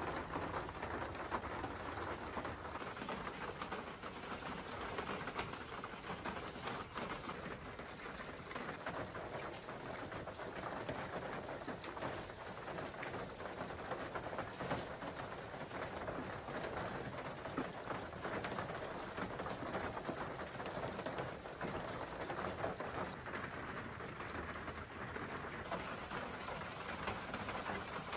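Steady patter of rain falling on surfaces, an even hiss dotted with many small drop ticks.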